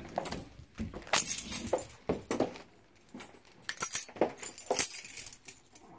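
A pet dog making short, repeated vocal sounds, mixed with several brief bursts of metal jingling.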